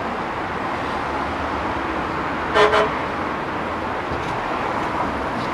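Steady street traffic, with a car horn tooting twice in quick succession about two and a half seconds in.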